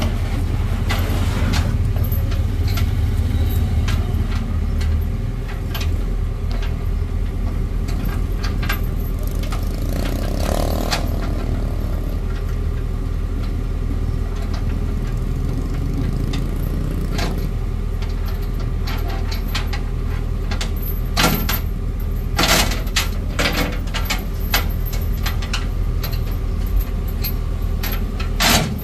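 Heavy truck engine idling steadily, with a few sharp metallic clanks and knocks about two-thirds of the way through and again near the end.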